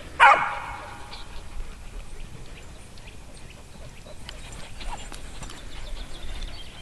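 A dog gives one loud, high bark about a quarter second in, falling in pitch as it fades. After it come faint scattered ticks and rustles as the dogs run over sand and dry grass.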